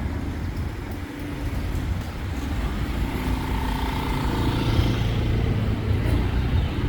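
A vehicle driving slowly in town traffic while looking for parking: a steady low engine and road rumble, with a faint held whine for a couple of seconds midway.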